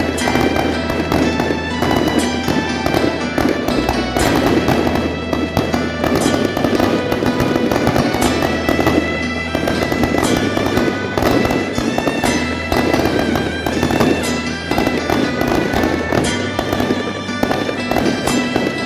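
Firecrackers crackling in a dense, continuous rattle over loud music.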